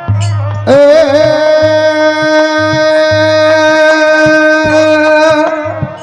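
Rajasthani folk music: a single long note is held steady for about five seconds over a repeating low drum beat.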